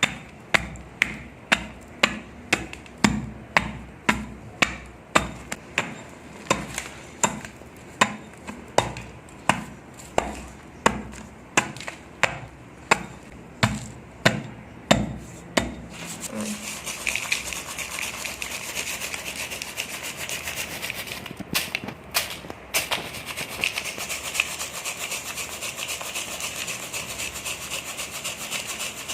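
Dusty, crunchy sand chunks being crumbled: sharp crunches about twice a second for the first half, then a continuous gritty rubbing and crumbling.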